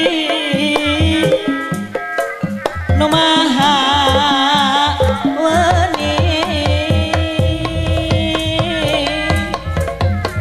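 Live Sundanese jaipongan gamelan music: kendang drums playing quick, busy strokes under metallophones and a wavering melodic line.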